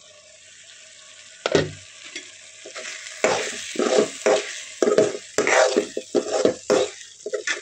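Mushroom masala gravy sizzling in a metal kadai with the lid off, a single knock about a second and a half in, then from about three seconds a metal spoon stirring and scraping against the pan in quick repeated strokes with a light metallic ring.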